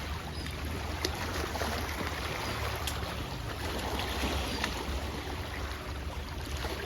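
Steady wind rumbling on the microphone over a wash of outdoor water noise, with a few faint clicks.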